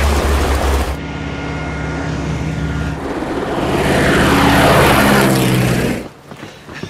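Propeller aircraft's piston engine running with a steady drone, after a heavy low rumble that cuts out about a second in. The engine swells louder with its pitch falling, as when a plane passes close by, then cuts off suddenly near the end.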